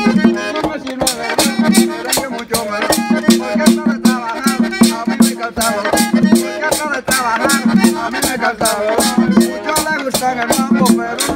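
Merengue típico played live: a button accordion carries the melody over tambora drum beats, while a metal güira is scraped in a fast, steady rhythm.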